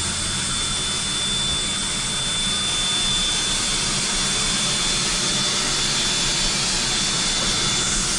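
Black Hills Central Railroad steam locomotive No. 108 standing with steam up, giving a steady loud hiss of escaping steam with a thin high whine held over it.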